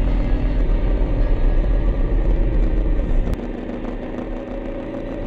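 Honda CB500X parallel-twin engine running while the motorcycle is ridden, with heavy low rumble from wind and road. About three seconds in the sound changes abruptly at a click and turns quieter and steadier.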